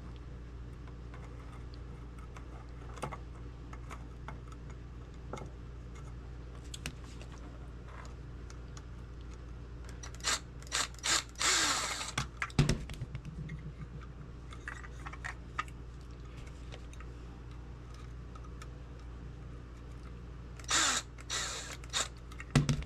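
Parts of an old lantern being handled and fitted back together: scattered faint clicks, with two spells of louder scraping and rattling, one about halfway through and one near the end.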